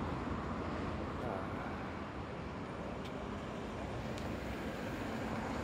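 Steady hum of road traffic, an even noise without distinct events.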